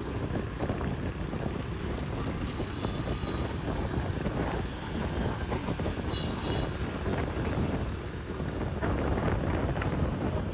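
Steady street traffic noise with wind on the microphone, and two short, faint high tones about three and six seconds in.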